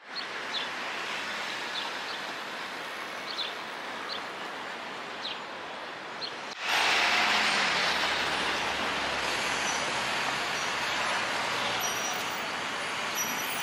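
City street traffic noise: a steady wash of passing cars. About six and a half seconds in it jumps abruptly louder, with a low rumble of heavier vehicles such as a bus and trucks.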